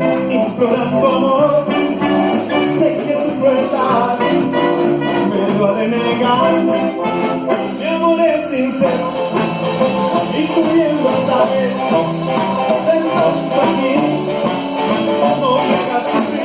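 Live band playing the instrumental introduction of a Latin pop ballad, with guitar and horns over a steady beat.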